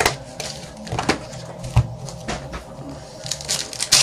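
Trading cards being handled and flipped through by hand on a table: scattered light taps and clicks, the sharpest a little under two seconds in.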